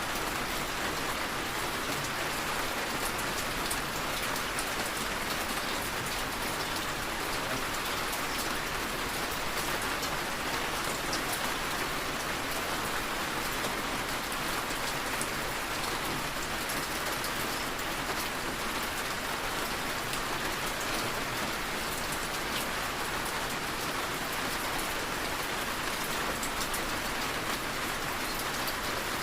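Steady rain falling and tapping on a window, an even hiss with fine scattered drop ticks.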